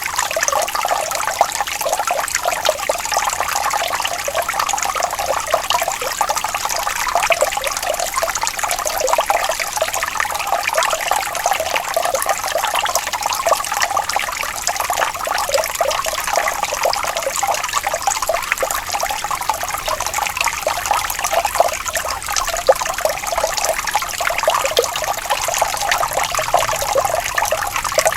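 Running water trickling and splashing steadily, with a dense, even bubbling and no low rumble.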